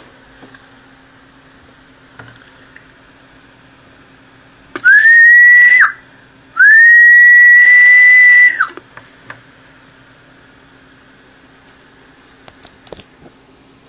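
Two loud whistled notes, the first about a second long and the second about two, each holding one steady high pitch after a quick rise and sliding down as it stops. This is a test whistle used to drive the Ranger AR-3500 transceiver's single-sideband transmitter into a dummy load, on a rig that puts out far less than its rated power.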